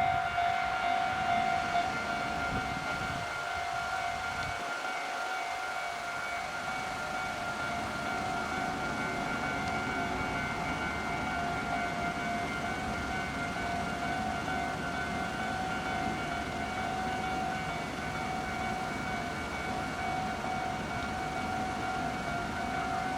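Japanese railway level crossing warning bell ringing: the electronic alarm's rapid repeating ding held at one steady pitch throughout, with a low rumble underneath from about six seconds in.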